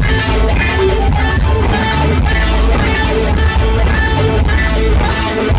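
Live rock band playing loudly, an electric guitar out front over bass and a steady drum beat.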